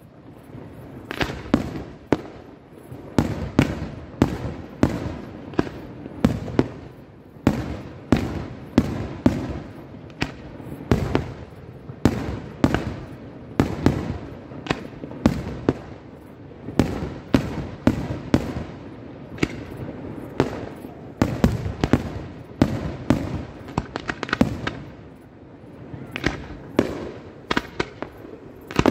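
Aerial firework shells from a professional pyrotechnic display bursting in quick succession, one to several sharp bangs a second, each trailed by a short echo.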